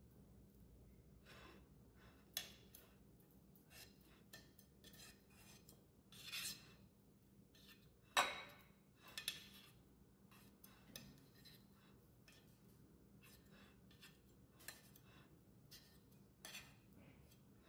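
Small metal spreader scraping and clinking against a plate as a layer of cream cheese is spread, in a string of short scrapes and taps; the loudest is about eight seconds in.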